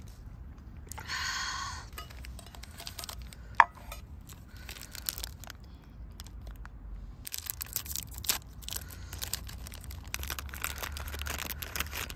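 Plastic wrapper of a Glico Bisco biscuit packet crinkling and tearing open, with dense rustling over the last five seconds. A single sharp tap comes about three and a half seconds in.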